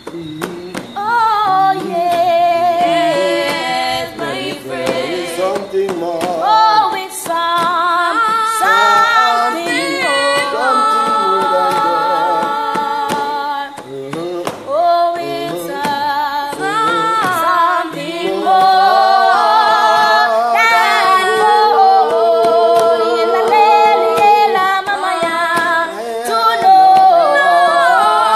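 A small group of voices singing a gospel worship song unaccompanied, with held notes and a short break about halfway through.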